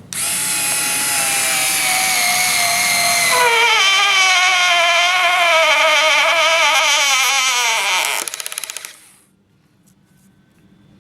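Hitachi DB3DL 3.6 V cordless stick screwdriver on low speed, driving a screw into wood. It makes a steady motor-and-gearbox whine whose pitch sinks and wavers from about three and a half seconds in as the screw goes deeper and loads it. It ends in a short run of rapid clicking about eight seconds in, then stops.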